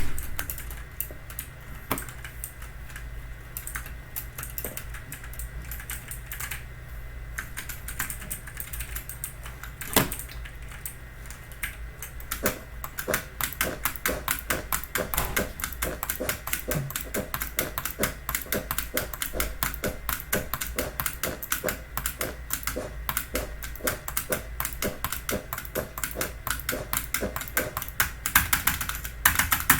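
Typing on a Logitech mechanical keyboard with clicky GX Blue-style switches. The keystrokes are scattered at first, then become fast and continuous a little under halfway through.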